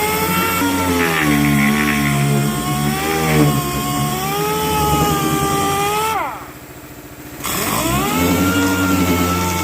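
Power sander running steadily on car bodywork, with a slight wavering whine. About six seconds in it is switched off and winds down, then a second or so later it spins back up and carries on.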